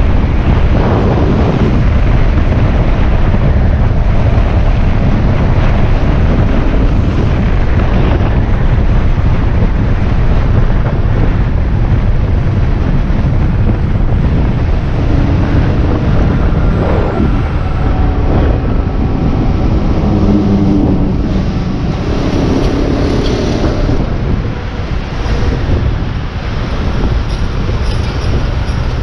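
Wind buffeting the microphone over a motorcycle engine while riding on the road, the engine note rising and falling with the throttle. In the last third the bike slows in traffic: the wind eases, the level dips, and the engine and nearby traffic come through more plainly.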